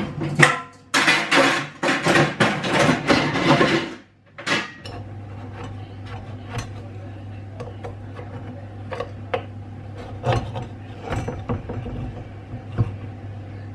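A knife scraping and clicking against a metal muffin tin, in scattered sharp ticks, as muffins baked in an ungreased tin are worked loose from their cups; a steady low hum runs underneath. The first few seconds hold a louder, denser stretch of noise.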